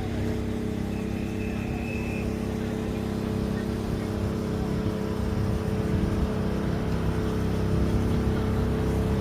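Steady low engine hum of motor traffic, growing a little louder near the end, with a brief thin high tone about a second in.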